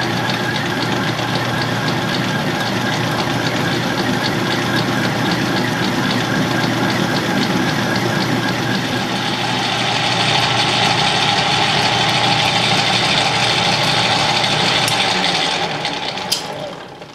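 Atlas metal lathe running while a parting tool cuts through spinning steel bar stock, a steady machine noise that grows louder about ten seconds in. It dies away near the end as the piece parts off.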